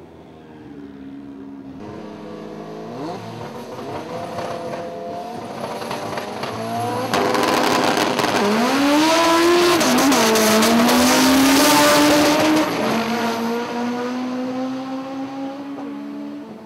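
Two import tuner drag cars revving at the start line, then launching and accelerating hard down the strip, their engine pitch rising and dropping twice at gear changes before the sound fades as they pull away.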